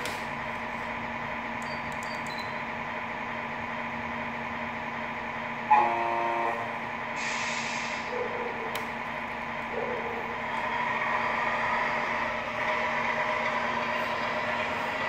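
Tamiya MFC-01 sound unit in an RC Scania R620 truck playing a diesel idle, with a short horn blast about six seconds in and an air-brake hiss just after. From about ten seconds the engine sound rises in pitch as the truck pulls away.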